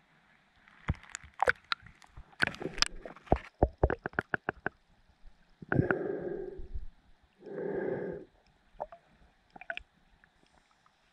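Water splashing and clicking against the camera as it goes under the lake surface, a quick run of sharp ticks and knocks. This is followed by two rushing breaths through a snorkel, each about a second long.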